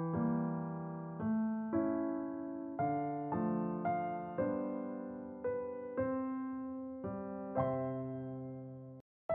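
Gentle electric piano background music, notes and chords struck about every half second and fading after each strike. The music drops out abruptly for a moment near the end.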